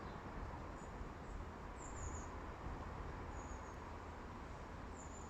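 Faint outdoor ambience: a steady low rumble with a few short, very thin high-pitched chirps about a second apart, from small birds or insects in the grassland.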